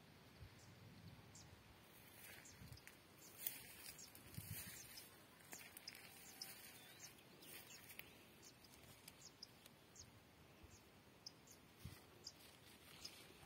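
Near silence: faint outdoor ambience with scattered short, high chirps and ticks.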